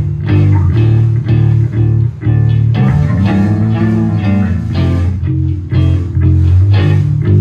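A rock band jamming loudly: electric guitar and bass guitar play a riff over drums.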